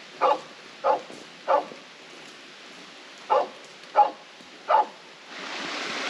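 A dog barking six times in two groups of three, the barks a little over half a second apart. A babbling creek comes up near the end.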